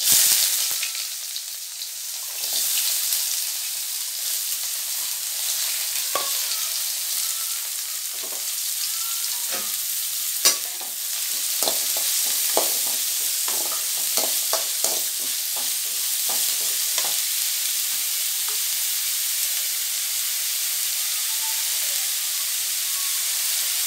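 Chopped onions hitting hot oil with a loud sizzle, settling into a steady frying hiss as they sauté with fennel seeds in a metal kadai. A metal ladle scrapes and clinks against the pan over and over from about six seconds in, with a sharp knock near the middle.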